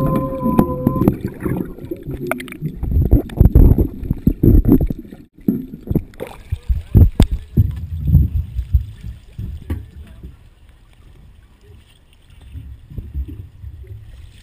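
Sea water sloshing and splashing over a camera housing bobbing at the surface, dipping in and out of the water in irregular gurgling surges. The surges die down to a quieter wash after about ten seconds.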